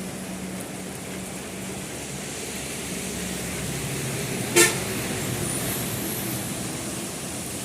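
Steady hiss of heavy rain and traffic on a wet highway, with a low vehicle engine hum. A little past halfway, one short, loud car horn toot.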